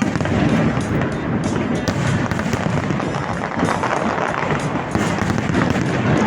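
New Year countdown fireworks display going off continuously: a dense crackling and popping of many shells, with music playing along.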